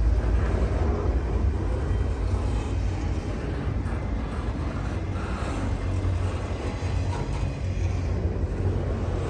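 Norfolk Southern freight train rolling slowly past, its diesel locomotives and cars making a steady low rumble.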